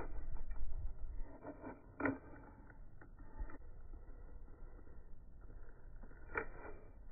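Opinel folding knife shaving wood off a chopstick blank by hand: a few short scraping cuts, a cluster about two seconds in and another near the end.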